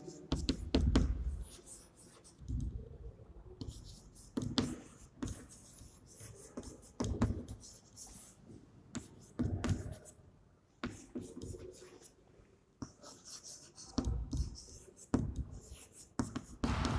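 Writing on a board: irregular scratching strokes and small taps, with short pauses between them.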